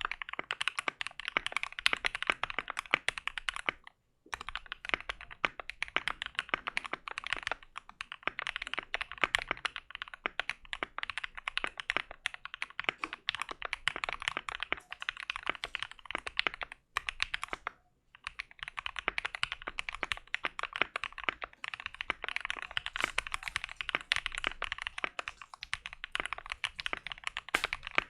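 Fast, continuous typing on a modded Keychron Q2 mechanical keyboard with hand-lubed Keychron G Pro brown tactile switches, a typing sound test. The clicks stop briefly about four seconds in and again for about a second near the middle.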